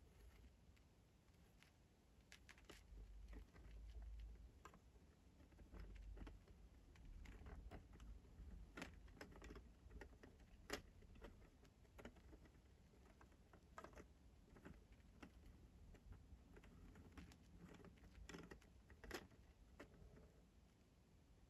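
Faint, scattered light clicks of plastic Lego Technic parts being handled and worked, about one every second or two, over a low handling rumble.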